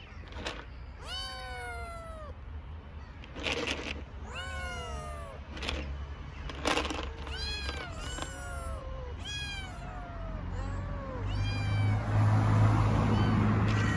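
Hungry stray kittens meowing loudly and repeatedly, about one meow a second, each call rising and then falling in pitch: begging for food. A low rumble swells near the end.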